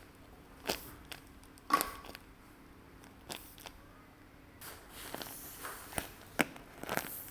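Paper being handled: scattered sharp taps and crackles, turning into denser crinkling and rustling in the second half.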